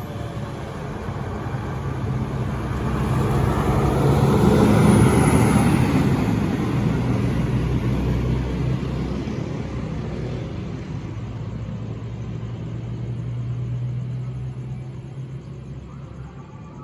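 A large bus driving past: engine and tyre noise swell to a peak about five seconds in, then fade as it moves away, leaving a steady low engine hum.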